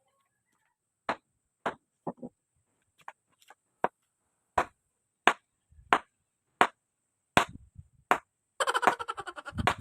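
Repeated sharp strikes on wood, about one every half to three-quarters of a second, as a bolo handle is worked, with a short denser burst of noise near the end.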